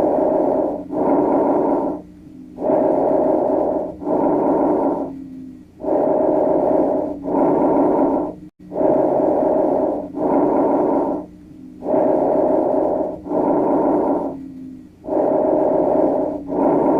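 Recorded lung breath sounds: six breaths about three seconds apart, each heard as two rushes of air close together, over a steady low hum.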